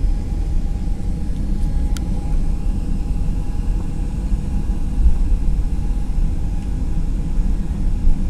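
Cabin noise inside a Boeing 737-800 taxiing: a steady low rumble from its CFM56 engines at taxi power and the wheels on the taxiway, with a faint steady tone above it. A single sharp click about two seconds in.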